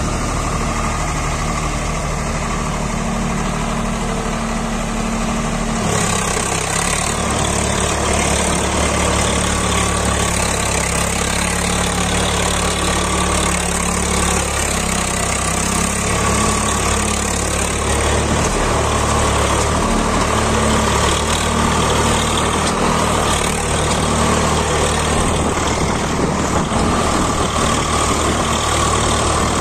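Swaraj 744 FE tractor's three-cylinder diesel engine running steadily under heavy load, hauling a trolley piled with soil. About six seconds in the engine note shifts and turns brighter.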